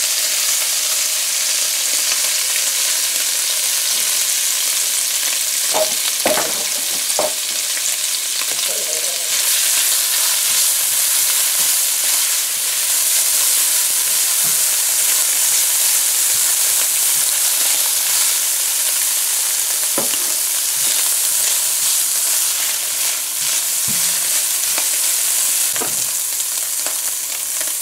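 Flaked, boiled saltfish frying in hot oil in a nonstick pan: a steady loud sizzle as it is stirred with a spatula, with a few brief knocks along the way.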